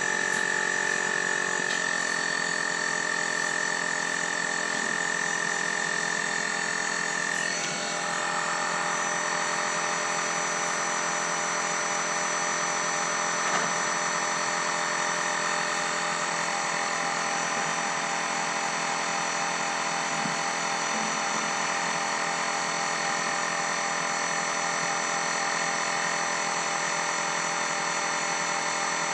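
DeWalt 20V Max cordless inflator running steadily in its high-pressure mode, pumping an inflatable kayak's floor chamber up toward a preset 9 psi. Its tone shifts about eight seconds in.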